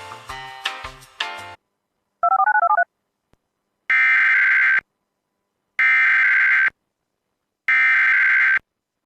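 Light jazzy elevator-style intro music ends about a second and a half in. A brief warbling tone follows, then three Emergency Alert System SAME header data bursts, each about a second long and a second apart: the buzzy digital code that opens an EAS alert.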